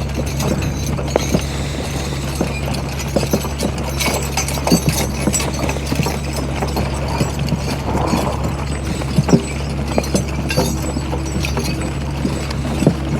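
Hooves of a walking draft horse team clip-clopping in an uneven run of knocks, over a steady low hum.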